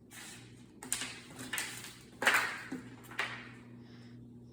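Rustling and tearing of a MacBook Air's box packaging being unwrapped by hand: a run of about five short swishes, the loudest a little after two seconds in.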